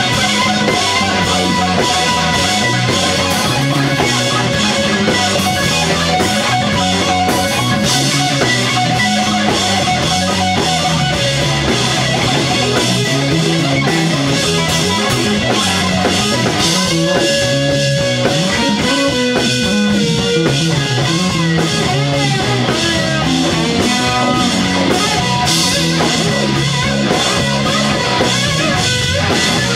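Live rock band: a Telecaster-style electric guitar plays an instrumental passage over a drum kit, loud and continuous, with a few held, bent notes a little past the middle.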